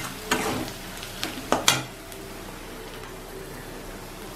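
A metal spatula scrapes and knocks against a kadhai several times in the first two seconds while stirring an onion and spice masala. After that comes the steady sizzle of the masala frying in oil.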